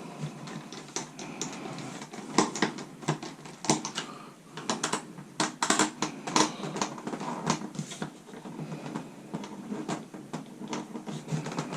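Irregular clicks, taps and knocks of hands and a screwdriver working on the plastic and foam underside of a radio-control model plane.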